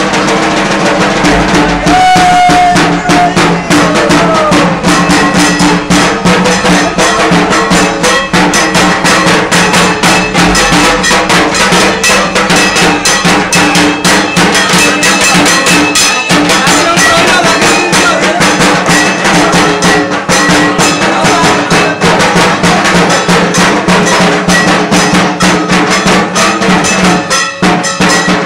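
Loud, fast drumming with a clanging metal beat, with a steady low tone held underneath, typical of the dhak drums and bell-metal percussion played at Durga Puja worship.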